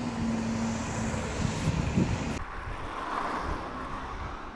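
Road traffic: a motor vehicle's engine and tyre noise from the street, with a steady engine tone for the first two seconds. About two and a half seconds in, the sound cuts abruptly to a quieter, fading hiss.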